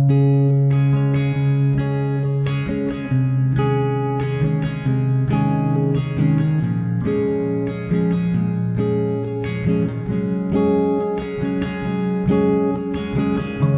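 Acoustic guitar background music, a steady run of plucked notes.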